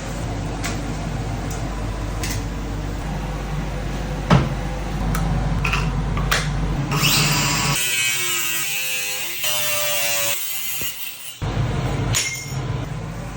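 Shop power tools working stainless steel, heard in short clips that change abruptly every few seconds. In the middle, a tool's whine slides down and up in pitch for a couple of seconds.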